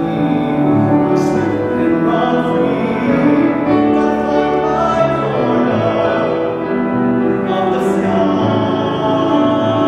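A teenage boy singing a solo in a trained, classical style, holding sustained notes.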